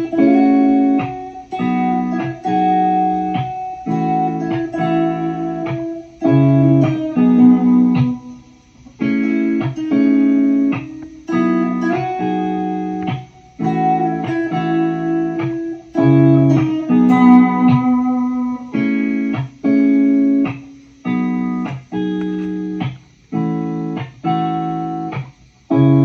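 Lofi guitar instrumental: short plucked guitar chords, each cut off sharply with a brief gap before the next, about one a second.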